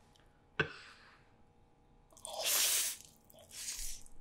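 Close-miked slurping of cold spicy bibim-myeon noodles: a long loud slurp just past the middle and a shorter, softer one near the end. A single sharp click about half a second in.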